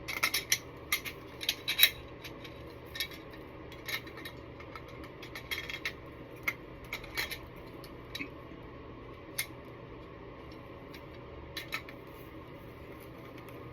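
Hand tools clicking and tapping against the metal fittings of an air compressor regulator as its parts are worked loose: a quick cluster of sharp clicks in the first two seconds, then scattered single clicks over a faint steady hum.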